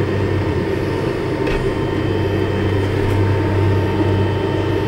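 Steady low mechanical hum, like a fan or air-conditioning unit running, with a faint high whine over it and two faint clicks about a second and a half and three seconds in.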